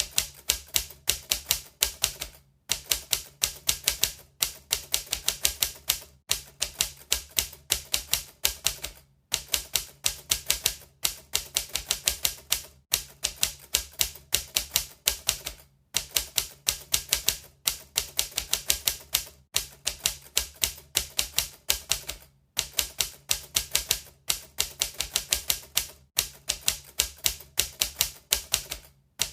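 Manual typewriter being typed on: rapid runs of sharp key strikes, several a second, broken by short pauses every second or two.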